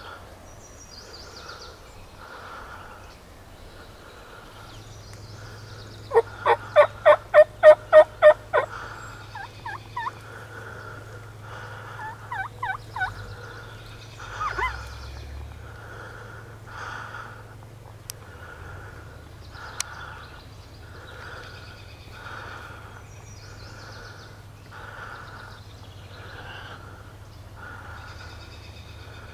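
Turkey calling: a run of about nine loud notes in quick succession about six seconds in, then a few softer scattered notes and a faint note repeated about once a second.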